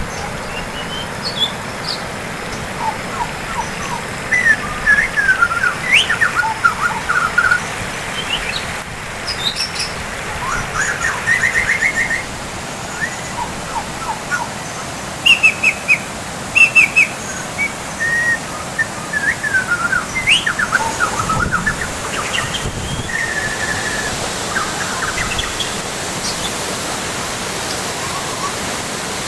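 Several birds chirping and trilling in short, irregular calls over a steady rush of falling water from a waterfall.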